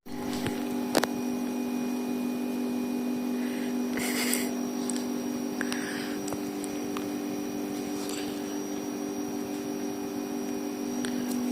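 A steady electrical hum, with a click about a second in and a few short faint sounds around four and six seconds in.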